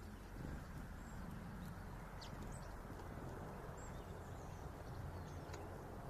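Small birds, long-tailed tits and a great tit, foraging among sunflower-seed husks: scattered soft pecking clicks and a few faint, very short high call notes, over a low steady rumble.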